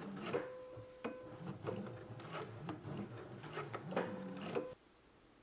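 Electric sewing machine sewing a long basting stitch: its motor hums with a steady tone under repeated needle-stroke clicks, and it stops suddenly near the end.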